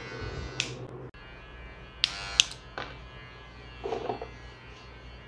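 Electric hair clipper buzzing steadily, dropping off abruptly about a second in, followed by a few sharp clicks and a short rattle.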